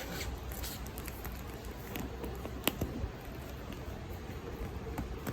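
Quiet handling noises with a few scattered sharp clicks and taps, typical of a package being opened by hand.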